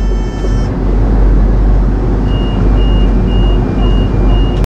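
Penang Hill funicular railway car running, a loud steady rumble with a strong low drone. A high whine with overtones stops under a second in, and from about two seconds in a row of short high beeps sounds, about one every 0.6 s.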